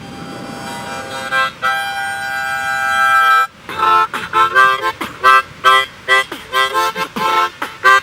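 Harmonica beatbox: a harmonica chord held and swelling louder for about three seconds, then breaking off into short, choppy chords about three a second, with beatbox rhythm breathed through the harmonica.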